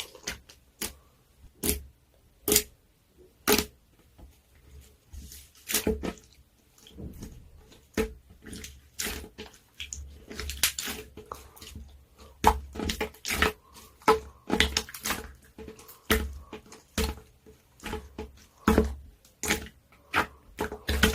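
Clear slime being squeezed and pressed by hand, giving irregular wet clicks and pops. They come sparsely at first and grow quicker and denser about halfway through.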